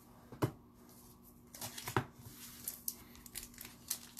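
Upper Deck hockey card pack wrapper being torn open and crinkled by hand, in scattered bursts with a couple of sharp snaps, about half a second in and around two seconds in.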